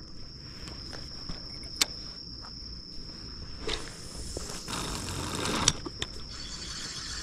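Spinning reel being cranked on a lure retrieve: a sharp click about two seconds in, then a whirring stretch from about four to six seconds in that ends in another sharp click. A steady high insect trill runs underneath.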